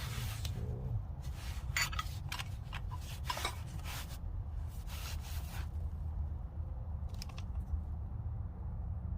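Steel combination wrenches being handled, clinking and scraping against each other and their pouch: a busy run of clinks and rustles for the first five or six seconds, then a few scattered ones near the end, over a steady low hum.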